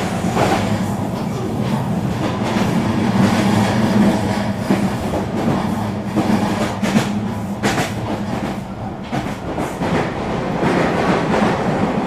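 Eurobahn regional train running along the track: a steady rumble of wheels and running gear, with a few sharp clacks over rail joints, the clearest about seven and eight seconds in.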